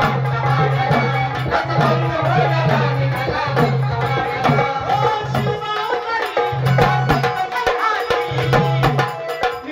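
Live Marathi folk music: a hand drum beating a quick rhythm under a melodic line, with a low note sounding on and off.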